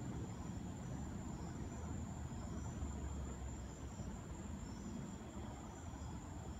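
Crickets trilling: a steady high trill with shorter chirps repeating about once a second, over a steady low rumble.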